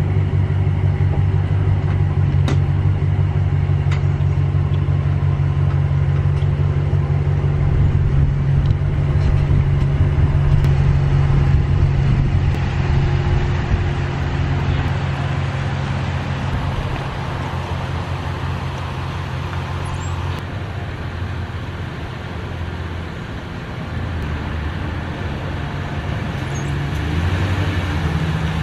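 Bass boat's outboard motor running steadily under way, with a rushing hiss of wind and water over it. The engine eases off somewhat past the middle and builds again near the end.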